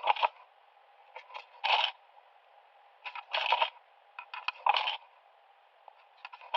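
Beads and small toy pieces clicking and clattering together in about seven short bursts as they are handled and threaded.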